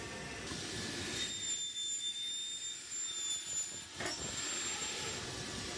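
Circular saw blade for aluminium spinning and cutting through an aluminium extrusion profile. It gives a high-pitched whine of several steady tones from about one second in until about four seconds in, then goes back to the steadier running sound.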